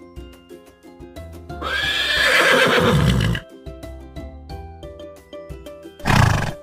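A horse whinnying once, loud and about two seconds long with a falling pitch, over soft children's background music, followed near the end by a short, loud, breathy burst.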